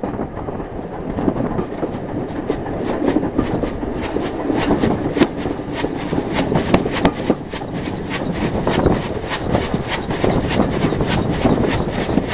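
Rebuilt Bulleid Battle of Britain class steam locomotive 34059 running, heard from on board: a fast, even rhythm of beats over a steady rumble.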